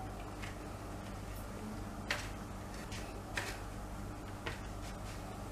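Hands kneading rice-flour dough on a steel plate: a few short clicks and knocks, about four, the loudest about two seconds in, over a steady low hum.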